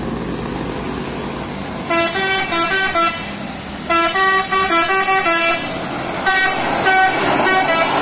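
A tour bus's telolet horn playing three quick runs of stepped, tune-like notes, about two seconds in, about four seconds in and near the end. The bus's engine and road noise grow louder near the end as it comes close.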